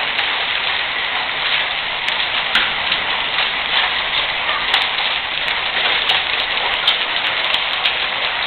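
Hail storm: a steady, dense hiss of falling rain and hail, with scattered sharp ticks throughout.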